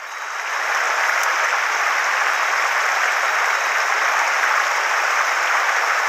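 A mountain stream running over a stony riffle: a steady, even rush of water that swells up over the first second and then holds.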